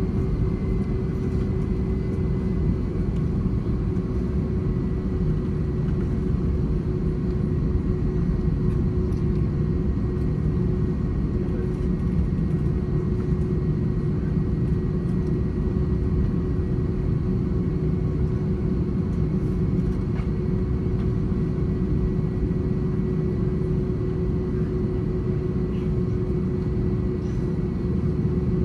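Jet engine and airflow noise inside the cabin of an Airbus A321-200 during its departure: a steady rumble with a steady droning hum over it that does not change.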